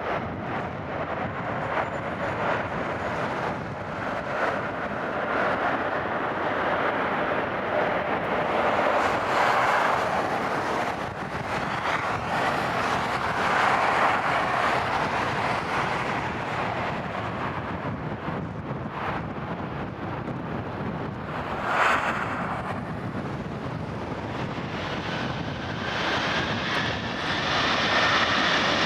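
Jet airliner engines on landing approach: a continuous rushing jet noise that swells and eases several times, with a rising engine whine near the end. A brief sudden burst about three-quarters of the way through.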